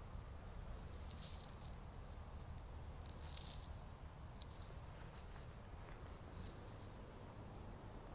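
Faint irregular rustling and crackling of dry leaves and twigs in woodland undergrowth, over a steady low rumble of wind or handling noise. A single sharp snap about four and a half seconds in.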